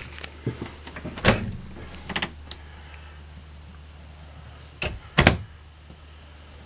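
Wooden cabinet and wardrobe doors being opened and shut: a few sharp knocks, the loudest about a second in and a double knock about five seconds in, over a low steady hum.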